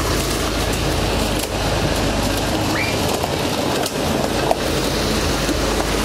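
Concrete mixer truck's diesel engine running steadily, with a constant rushing noise over it.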